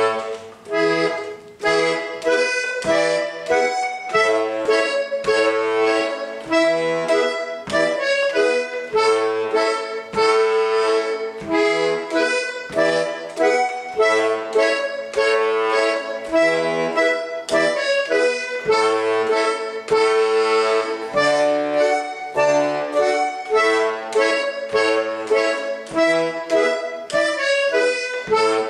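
Small button accordion (a Russian-style garmon) playing a quick folk dance tune: a rapid right-hand melody over steady, alternating left-hand bass notes and chords.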